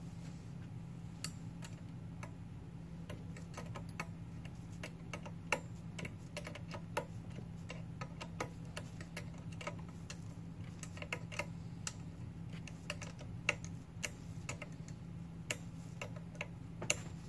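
Irregular light clicks and taps of small metal parts being handled and fitted as a front spindle and king pin are installed on a Ford Model A I-beam axle, with a few sharper clicks standing out.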